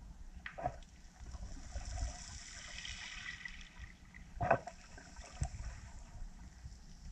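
Underwater ambience picked up by a submerged camera: a low rumble of moving water with a hiss that swells for a couple of seconds in the middle. Two brief swishes come through, one about half a second in and a louder one about four and a half seconds in.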